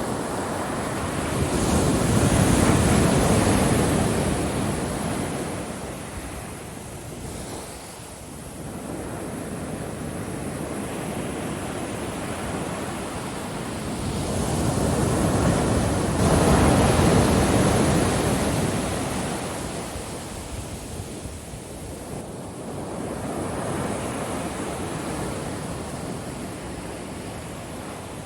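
Ocean waves breaking and washing on a beach, the surf swelling and ebbing in slow surges, with two big breakers about two seconds in and again about halfway through.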